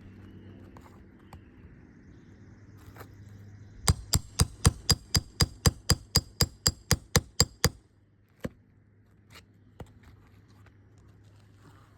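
Hammer striking metal in a fast, even run of about twenty ringing blows, around five a second, starting about four seconds in, working a roofing nail out from under an asphalt shingle. A couple of single knocks follow.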